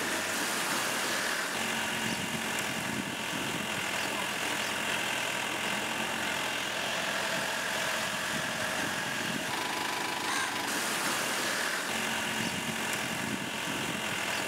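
Motor vehicle engine running steadily while driving slowly.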